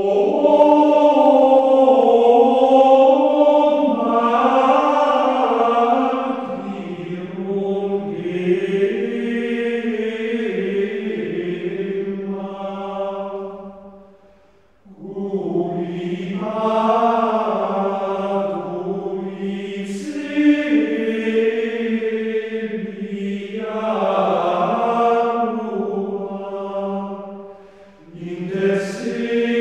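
Background music of a choir chanting slow, sustained vocal lines in long phrases, breaking off briefly about halfway through and again near the end.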